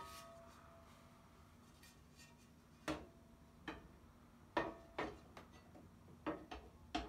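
Light clicks and taps from handling turntable parts, about eight at uneven intervals. A few leave a short metallic ring.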